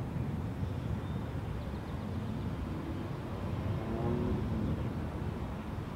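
Outdoor ambience: a steady low rumble, with faint wavering pitched sounds about three to four seconds in.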